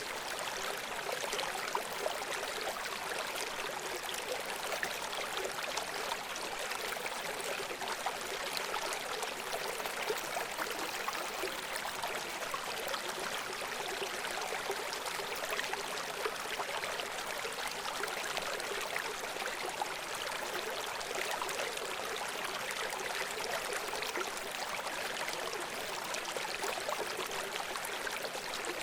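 A river running over rocks: a steady, even rush of water flecked with many small gurgles and splashes, bright rather than deep.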